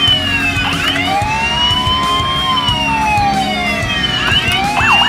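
Electronic police siren in a slow wail: it rises for about two seconds, falls, then rises again, with a second siren sweeping across it. Near the end it switches to a fast yelp warble, about five cycles a second.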